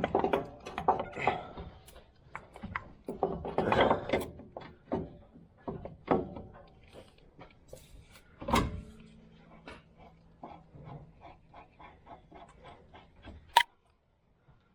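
Hand tools knocking and clanking on steel parts while a pitman arm puller is fitted and tightened. Scattered clanks give way to one louder knock about halfway through, then a steady run of ratchet clicks, about three a second, ending in a sharp click.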